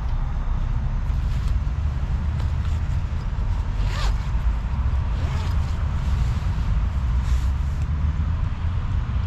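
A bivvy bag being unzipped and rustled while someone climbs out of it, with scattered short scraping strokes and one brief sweep about four seconds in, over a steady low rumble of road traffic.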